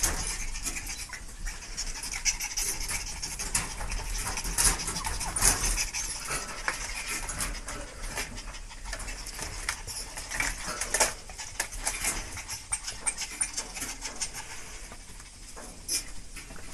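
A puppy's claws scratching and rattling against a wire dog cage, a busy, irregular run of clicks and scratches.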